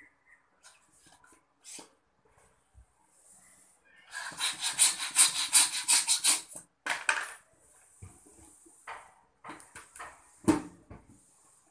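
Hand balloon pump worked in a quick run of strokes for about two and a half seconds, each stroke a puff of air, inflating a latex balloon; a few more strokes follow, then light rubbing of the balloon and a single sharp knock near the end.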